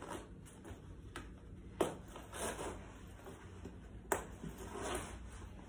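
Rustling of a camouflage field jacket being handled while its plastic zipper is worked, with two sharp clicks about two and four seconds in.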